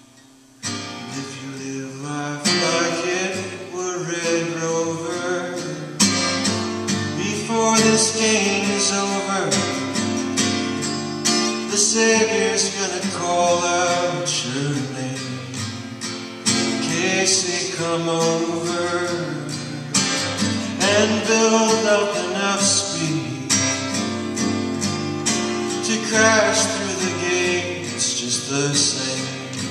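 Solo acoustic guitar played with a man singing over it, heard live. The sound dips almost to nothing for about half a second at the start, then the guitar comes back in and the singing follows a couple of seconds later.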